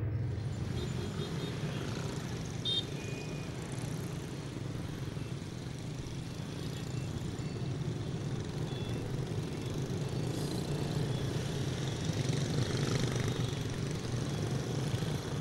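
Street traffic ambience: a steady hum of passing vehicles, growing a little louder near the end.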